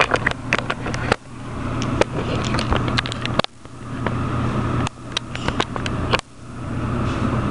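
Handling noise: a string of small clicks and knocks over a steady low hum, with the sound cutting down sharply three times and slowly swelling back each time.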